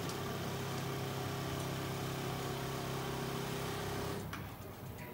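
Wolek KJW 75 automatic Roman-blind tunnel sewing machine running, its sewing head travelling along the rail across the blind. It makes a steady motor hum that stops about four seconds in.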